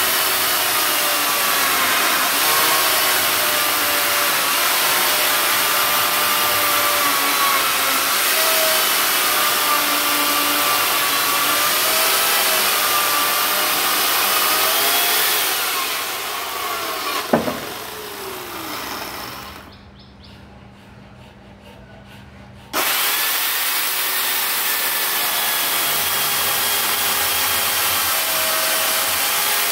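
Corded Makita electric chainsaw cutting into a wood block, its motor pitch wavering as the chain bites and eases. A little past halfway the sawing dies away into a lull of a few seconds, then starts again suddenly and runs on steadily.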